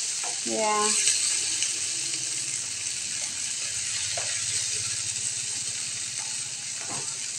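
Diced onions and tomatoes sizzling in hot oil in a nonstick frying pan, a steady hiss, while a spatula stirs them and scrapes the pan now and then.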